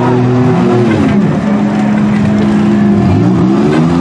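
Engines of demolition derby trucks and minivans running and revving, their pitch rising and falling several times.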